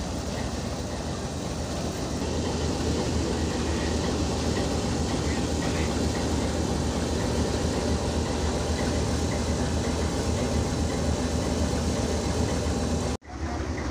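Pakistan Railways RGE-24 diesel-electric locomotive's engine running steadily at idle, a deep, even drone, heard up close. It cuts out for an instant near the end.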